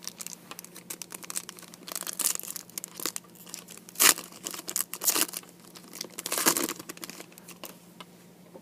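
Trading cards being handled and flipped through from a freshly opened hobby pack: a run of short rustles and swishes, the sharpest about two, four, five and six and a half seconds in.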